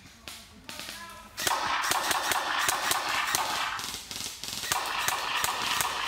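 Recorded Colt M4 full-auto gunfire sound effect played through a speaker on an airsoft gun. Two long bursts of rapid shots: one starting about a second and a half in, a short pause near the four-second mark, then a second burst running on.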